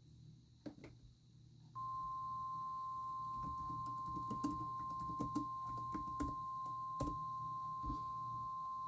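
NOAA Weather Radio warning alarm tone: one steady, unbroken high beep at about 1050 Hz that starts about two seconds in, sounding ahead of a severe thunderstorm warning. Scattered light clicks and knocks come in before and during it.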